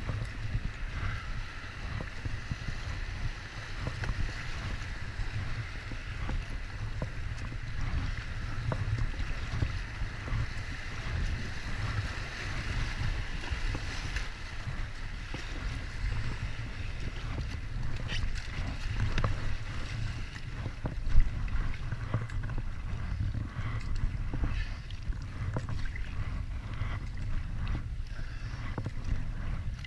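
Flood-swollen river water rushing and splashing around an inflatable kayak, with paddle splashes and a steady low rumble of wind on the microphone. One sharp knock stands out about two-thirds of the way through.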